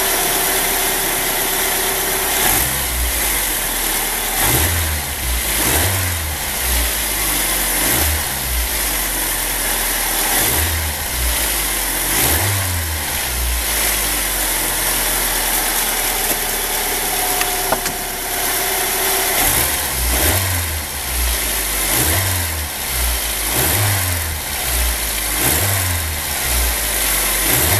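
1999 Saturn SL1's 1.9-litre four-cylinder engine running with a leaking exhaust, with uneven low pulses every second or two.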